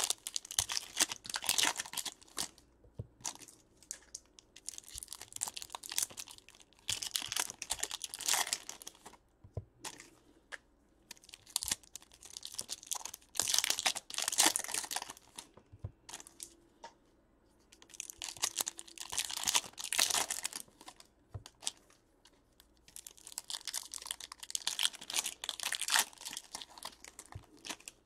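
Trading card pack wrappers being torn open and crinkled by hand, in about five bursts of a few seconds each with short pauses between.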